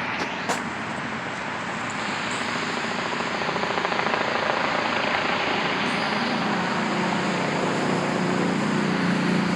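Road traffic noise, a steady rush that slowly grows louder, with a low engine hum coming in over the last few seconds. There are two short clicks just after the start.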